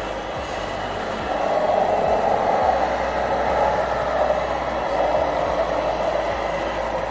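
Radio-controlled scale model truck running: a steady mechanical noise that grows louder about a second in.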